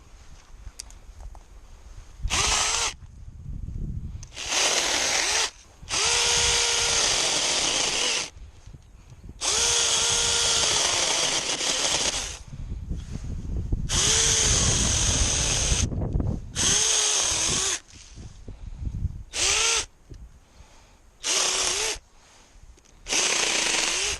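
Cordless mini chainsaw's electric motor whining in about nine short bursts as the trigger is pulled and released, its pitch rising each time it spins up. Brush and branches rustle and crack between the bursts.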